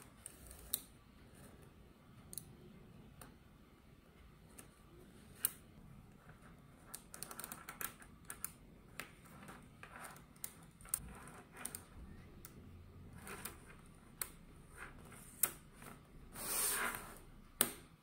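Small neodymium magnet balls clicking as they snap together and are pushed into place on a table, in irregular sharp clicks. Near the end there is a longer scraping rustle.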